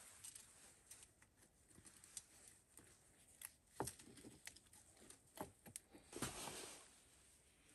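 Faint, scattered scrapes and light taps of a flat stone being handled and pressed into wet cement mortar, with a slightly longer gritty scrape about six seconds in.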